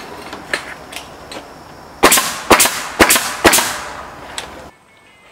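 Pneumatic nail gun firing nails into wooden strapping boards: a series of sharp shots, a few lighter ones first, then louder ones coming in quick pairs. The sound cuts off suddenly near the end.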